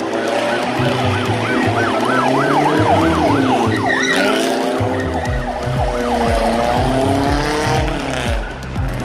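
Police-style siren yelping in a fast rising-and-falling wail over loud music with a steady bass beat, while a police-liveried show car drifts; its tyres screech briefly about four seconds in.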